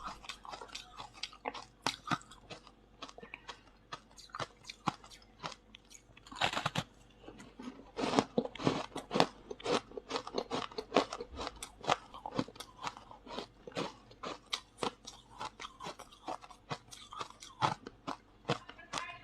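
Frost ice being bitten and chewed: a rapid run of crisp crunches, densest around six to nine seconds in.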